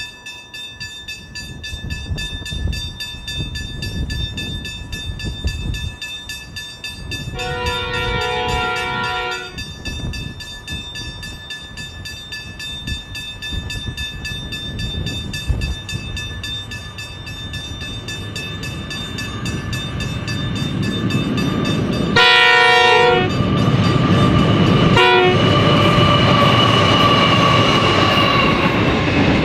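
Wind buffets the microphone while an approaching freight train's NR class GE diesel-electric locomotives sound their horn in a two-second blast about a quarter of the way in. Near the end the horn sounds again, once long and once briefly, as the locomotives pass loudly. The train's wagons then roll by close with steady wheel and rail noise.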